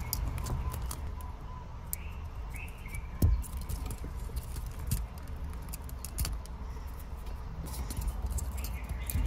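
Small clicks and scratches of a thin pick working wire terminals out of a Honda Acty's plastic dash-cluster wiring connector, with a few sharper knocks, the loudest about three seconds in.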